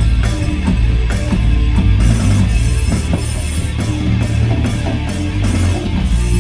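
A rock band playing at a sound check: guitar over heavy bass and drums with cymbal hits.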